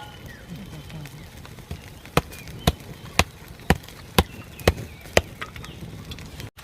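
Steady chopping with a blade: seven even strikes, about two a second, starting about two seconds in.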